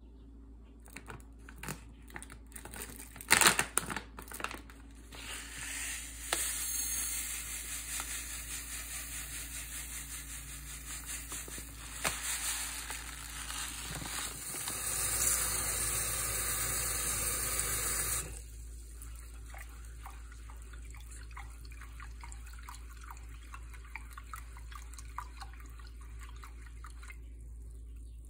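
Quinoa rinsing in a pot: dry grains clatter into the pot, tap water runs steadily and is shut off about two-thirds of the way through, then a hand swishes and rubs the quinoa in the water.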